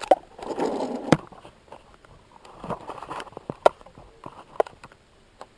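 Handling noise as a small plastic toy car is moved about and set down on a tabletop mat: a rustle at first, then a few separate sharp clicks and taps with softer scuffs between them.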